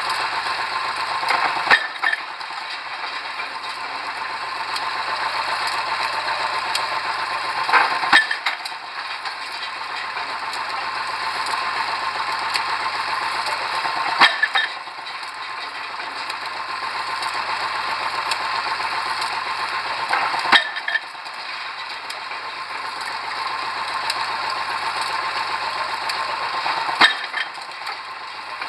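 Pile-driving rig at work: its engine runs steadily while the hammer strikes the pile five times, about once every six seconds, each blow a sharp impact.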